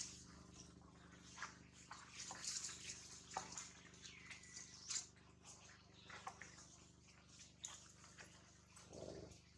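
Quiet outdoor ambience: a low hiss with scattered faint clicks and rustles.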